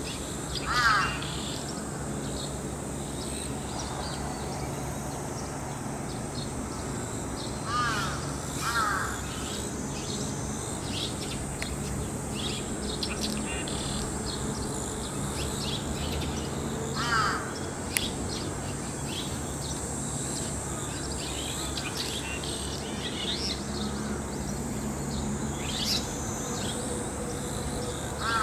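Red-rumped swallows calling: a handful of short calls, bending in pitch and spaced several seconds apart, over soft, quick high-pitched twittering.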